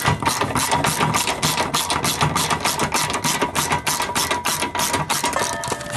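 Ratchet wrench on long extensions clicking rapidly and steadily, about five or six clicks a second, as it backs off a 15 mm fuel-tank strap bolt; the clicking stops a little before the end.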